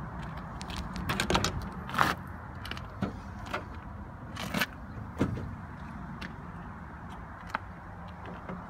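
Ford Escort RS Turbo's door being opened: a series of sharp clicks and clunks from the handle, latch and door, the loudest about two seconds in, then a few lighter knocks as the cabin is handled, over a steady low hum.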